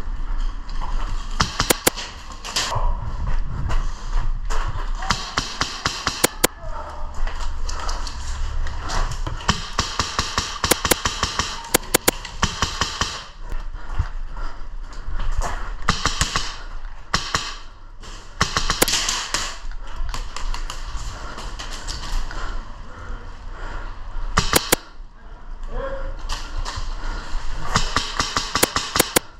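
Airsoft guns firing in repeated rapid bursts of sharp clicks.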